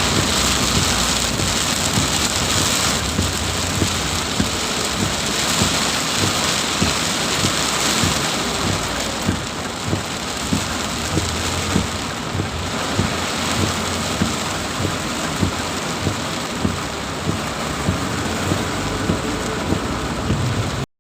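Heavy rain pouring steadily, with close drips landing on a surface about once a second. The sound cuts off suddenly at the end.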